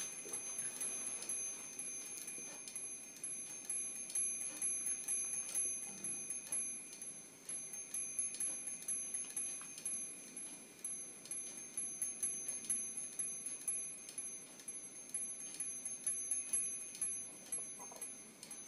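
Brass angel chimes, a Christmas carousel turned by the heat of its candles, ringing: the strikers on the turning angels tap the small bells in quick, irregular tinkling over steady, lingering high ringing tones.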